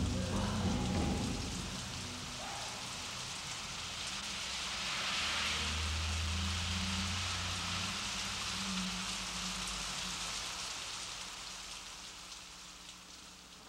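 A steady rain-like hiss that swells midway, with a low rumble under it, then fades out toward the end.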